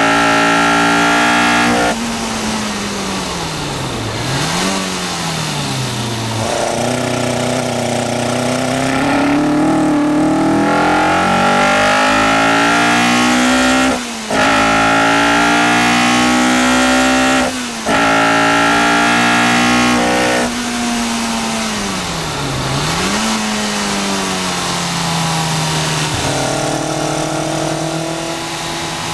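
Caterham R400's Duratec four-cylinder engine on a hard lap. Twice it lifts off with the revs falling, then jumps back up with a downshift. In between it pulls hard with the pitch climbing, broken by two quick upshifts in the middle.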